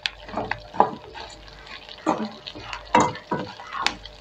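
Slotted metal spatula scraping and stirring dried red chillies, coriander seeds and cumin around a metal kadai in irregular strokes, about one every half second to a second. The spices are roasting in oil for a masala paste, with a light sizzle under the scrapes.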